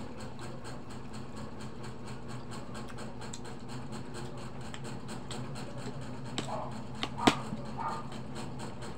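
Quiet eating sounds from people eating rice and dried fish by hand, over a steady low hum. A few sharp clicks come in the second half, the loudest a little past seven seconds, with short mouth sounds around them.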